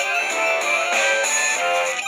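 A guitar-based ringtone melody playing from a Sony Ericsson F305 mobile phone's small stereo speakers, with a thin sound and no deep bass.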